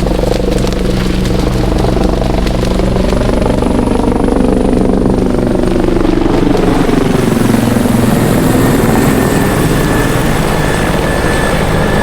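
Helicopter flying past: a steady rotor beat with an engine tone that drops in pitch as it goes by.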